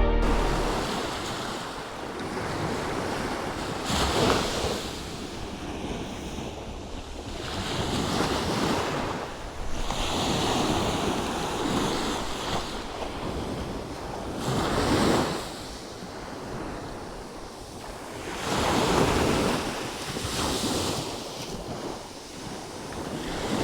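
Sea waves washing onto the shore, swelling and falling back several times, with wind buffeting the microphone.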